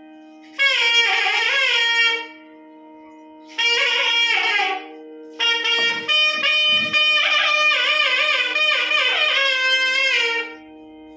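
A wind instrument plays three loud melodic phrases with bending, wavering pitch over a steady drone, with a few low beats near the middle.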